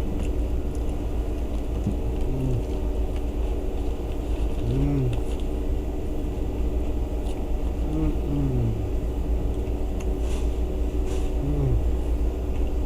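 Steady low rumble of an idling car, with a few brief, faint voice fragments.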